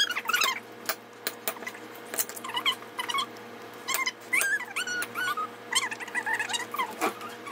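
Homemade slime being poked and stretched by hand, giving sharp wet clicks and pops. Through it, an unseen animal whimpers again and again in short, high, wavering whines.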